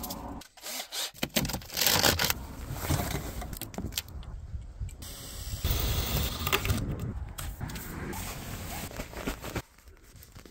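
Parkside cordless drill with a hole saw cutting through the van's sheet-metal roof, mixed with handling and rustling noises. It dies down near the end.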